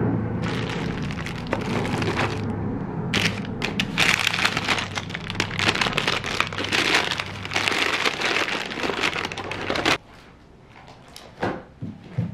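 Paper packaging crinkling and rustling as items are pulled out of a canvas bag. About ten seconds in it stops suddenly, followed by a few soft knocks.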